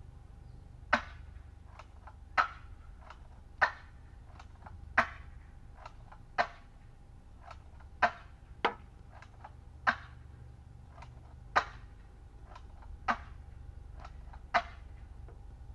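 M870 pump-action gel blaster shotgun being fired again and again: about eleven sharp snaps roughly a second and a half apart, with fainter clicks between them. The spring-powered shotgun throws two to three gel balls per shot.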